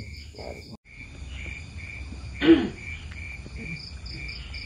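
Insects chirping in a steady pulsing pattern, about three or four chirps a second. The sound cuts out for a moment just under a second in, and a short, sharp louder sound stands out about halfway through.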